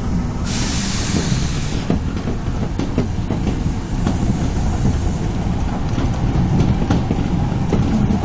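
Osaka Metro 22 series subway train running: a steady low rumble with scattered wheel clicks over the rail joints, and a brief hiss from about half a second in for just over a second.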